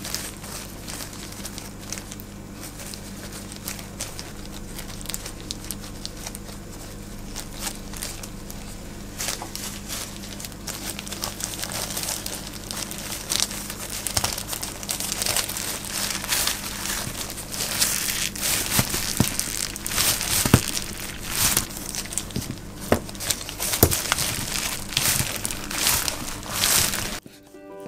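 Disposable plastic gloves crinkling and rustling as hands press fillings onto nori and roll a bamboo sushi mat, with sharper clicks and crackles coming thicker in the second half, over a steady low hum. The sound cuts off just before the end.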